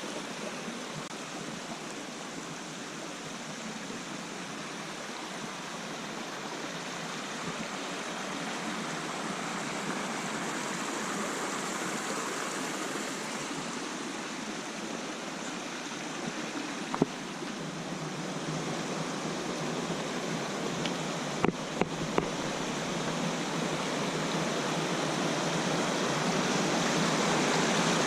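Rushing stream water, a steady even rush that slowly grows louder, with a few sharp clicks partway through.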